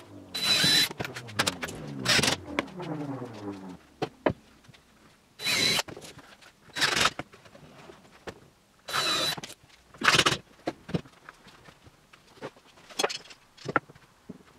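Cordless drill driving screws into plywood in short bursts, about six times, with a falling motor whine over the first few seconds and a few small clicks near the end.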